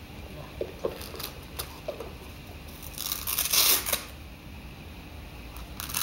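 Velcro (hook-and-loop) strap on a dog shoe being pulled open with a ripping sound of about a second, midway through, then a second, shorter rip at the end.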